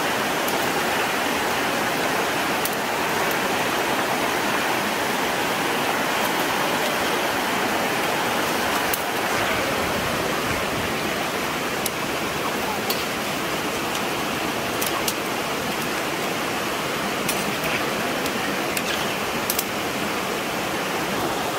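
Tomato and vegetable masala bubbling and sizzling steadily in an iron pan over a wood fire: a dense, even hiss with scattered sharp crackles from the burning sticks.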